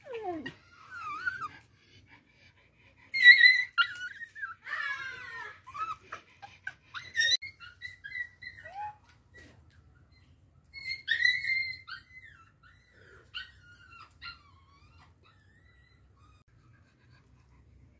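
A dog giving a series of short, high-pitched sliding cries, loudest about three seconds in and stopping after about fourteen seconds.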